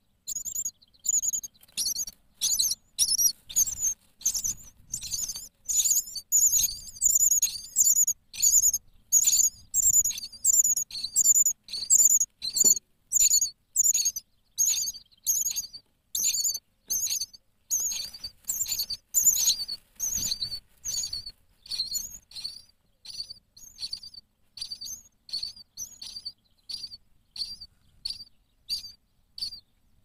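Common starling nestlings begging for food: a rapid run of short, high-pitched calls, about two a second, growing weaker over the last third. Faint rustling of nest material underneath.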